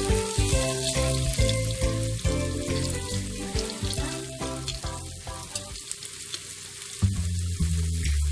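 Flour-coated tofu cubes frying in oil in a pan, with a steady sizzle, over background music.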